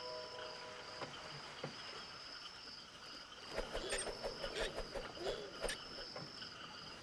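Crickets chirping steadily as a night-time ambience, with a run of short wavering calls in the middle.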